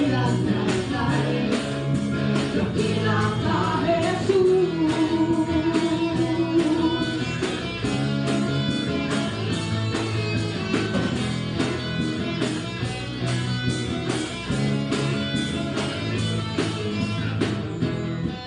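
Christian band music: guitars over a steady drum beat.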